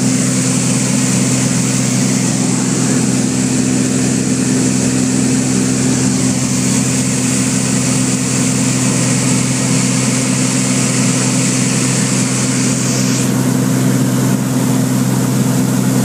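Socata Rallye light aircraft's piston engine and propeller running steadily at climb power, heard from inside the cockpit. A high hiss drops away about 13 seconds in.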